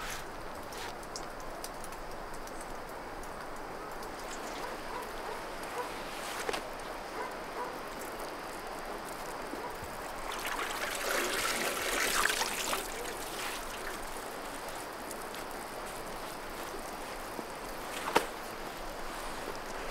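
Steady outdoor hiss, with a louder rustling stretch about eleven to thirteen seconds in and a single sharp click near the end.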